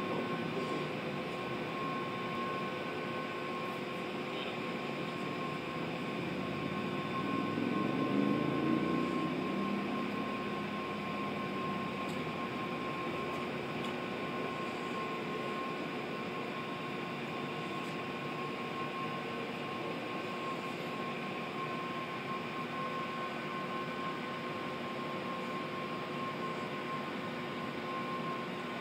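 Steady mechanical hum and hiss of a large indoor hall's ventilation, with a steady high whine over it. A low rumble swells and fades about seven to ten seconds in.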